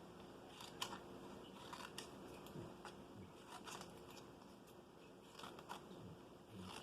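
Faint, irregular snips and rustles of paper being cut into a feather shape.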